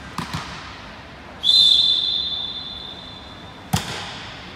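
Referee's whistle blown in one long blast that fades out over about two seconds, the signal for the serve. It follows a couple of ball bounces on the hall floor, and near the end comes one sharp smack of a hand striking the volleyball on the serve.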